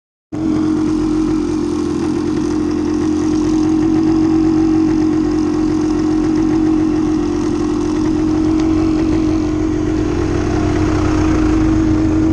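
Suzuki TSR dirt bike's engine idling steadily.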